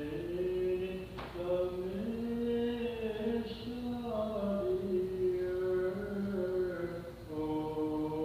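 Orthodox liturgical chant: voices singing a slow melody, gliding between long held notes.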